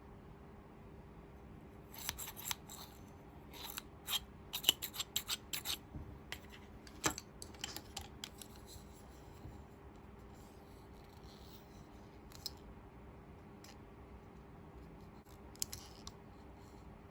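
Scissors snipping through packaging: a quick run of short, sharp snips in the first half, then a few isolated ones later.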